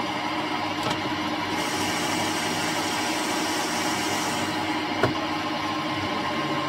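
Metal lathe running with the chuck spinning while a carbide tool turns an aluminium part down; a steady hum with a higher hiss for about three seconds in the middle. A sharp click about five seconds in.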